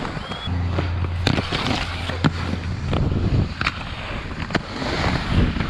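Aggressive inline skate wheels rolling over a concrete skatepark bowl: a steady rough rolling noise with a string of sharp clacks as the skates cross joints and transitions. A low hum sits underneath for the first half.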